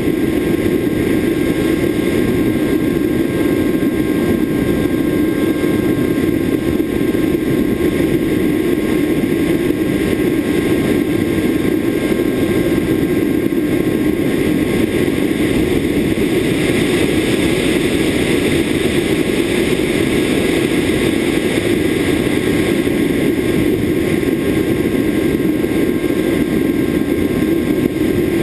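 Steady wind rush and electric motor drone from a camera riding on an EasyStar RC foam plane in flight, with a few faint steady whining tones above it. The rushing grows a little brighter for a while past the middle.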